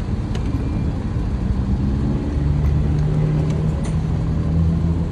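A steady low mechanical hum, like an engine or motor running, that steps up in pitch and grows a little louder about two seconds in. There are a few faint clicks.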